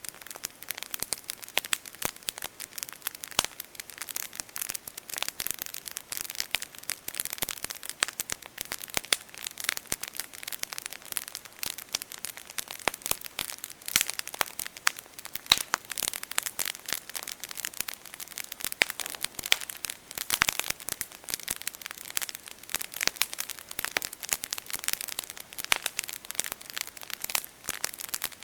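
Wood campfire crackling, with a constant stream of irregular sharp pops and snaps.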